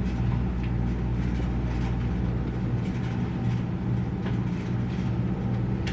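A steady low hum, with a few faint light taps of a spoon stirring noodles in a pot.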